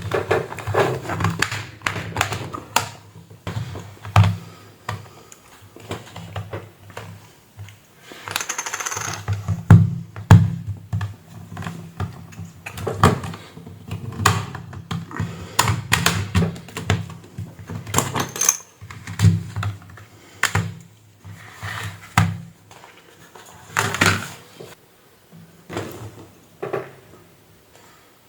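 Irregular clicks, taps and knocks of hard plastic and small tools being handled while the tablet is worked on, with a brief scraping sound about nine seconds in and the loudest knocks just after.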